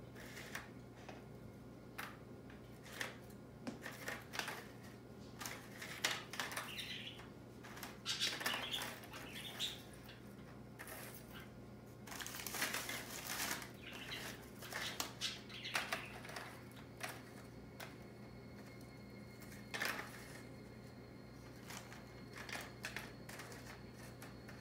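Soda crackers being laid one by one onto a metal cookie tray: faint, irregular light taps and clicks, with bouts of rustling from the cracker sleeve, over a low steady hum.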